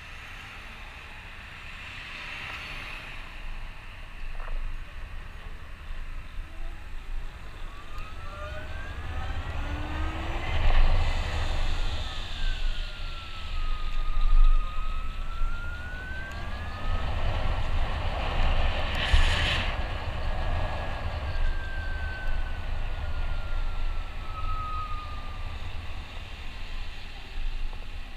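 Electric drive motor of a Zero SR motorcycle whining, its pitch rising as it accelerates, dipping as it slows for a turn, then rising again and slowly falling as it eases off. A low wind rumble on the helmet-mounted camera microphone runs underneath.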